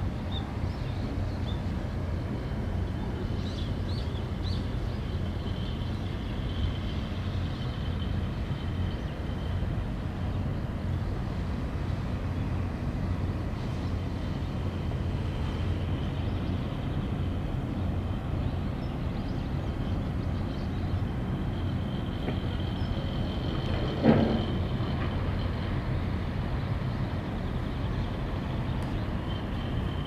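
Steady low rumble of outdoor ambience, with a faint high tone that comes and goes and a single short knock about 24 seconds in.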